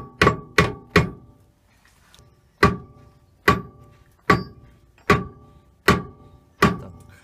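Mallet taps on the spindle of a Record CL4 lathe headstock, driving it home to seat the rear bearing. Three quick taps come first, then after a pause six evenly spaced ones, each with a short metallic ring.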